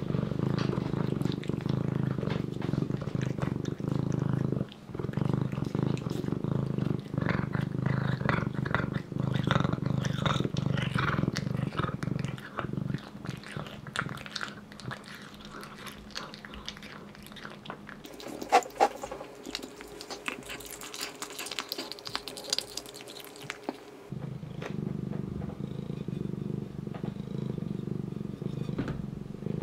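Domestic cat eating raw lamb: chewing and biting with many small clicks, over a steady low purr that drops out for about ten seconds in the middle.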